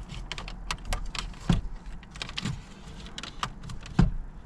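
Plastic dashboard trim panel being handled and pressed back into place: a run of small plastic clicks and rattles, with three louder knocks.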